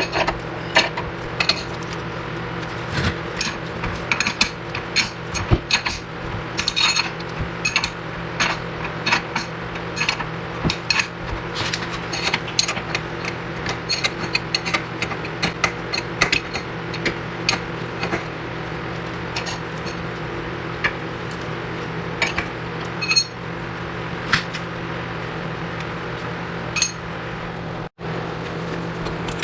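Metal hand tools clinking and clanking on steel suspension parts while the wishbone bolts and nuts are loosened: many short, sharp metallic clicks over a steady low hum.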